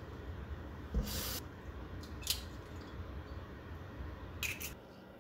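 A waterglassed hen's egg being cracked by hand over a bowl: a few sharp shell cracks spread over several seconds, with a wet squish as the egg comes out.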